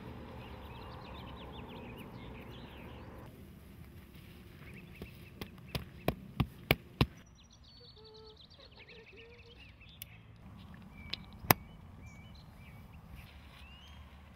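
Birds chirping over a light outdoor background, with a quick run of about six sharp clicks midway and two more a few seconds later, from the tent's poles and clips being fitted.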